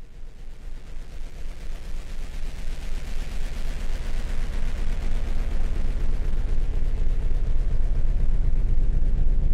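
Synthesized speaker-cleaner (water-eject) sound: a deep, rapidly pulsing rumble that fades in and grows steadily louder, with a hiss higher up that swells in the middle and then eases. It is made to shake trapped water out of a phone speaker when played at high volume.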